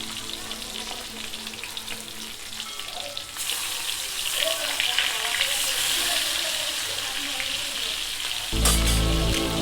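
Hilsa fish pieces frying in hot oil in a pan, a steady crackling sizzle that grows louder about a third of the way in. Near the end, loud background music with a low beat comes in over it.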